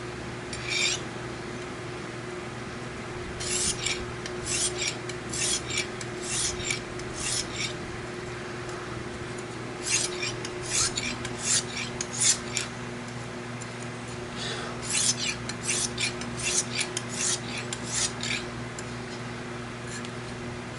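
Lansky sharpening system's fine-grit, oiled synthetic hone drawn lightly along a knife edge, in runs of short scraping strokes about two a second with pauses between. These are the light finishing strokes that smooth out the edge's remaining irregularities.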